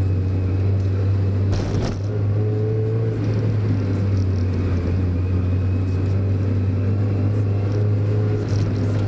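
Mazda Roadster's four-cylinder engine running at a steady speed under way, heard from inside the car with road noise. There is a brief knock just under two seconds in.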